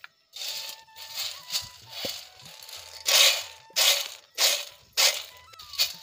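Roasted chickpeas rattling and sliding across a steel plate as it is shaken back and forth to winnow off their husks. The shaking comes in repeated strokes, evenly at about one and a half a second in the second half.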